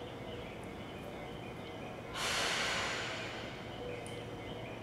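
A sudden hiss of compressed air venting from a train's air system, about two seconds in, fading away over a second and a half, over the steady hum of the station platform.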